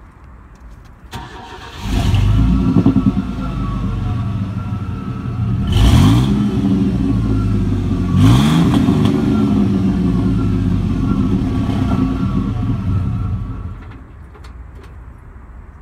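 1990 Chevy C1500 pickup with a loud exhaust out of dual rear tips: the engine cranks briefly, catches about two seconds in and settles to idle. It is revved twice, near six and eight seconds, and cuts off near the end.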